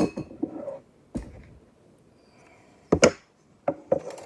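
Kitchen clatter: a mixing bowl set down on the counter, followed by a few sharp knocks and clicks of dishes and utensils being handled. The loudest knock comes about three seconds in.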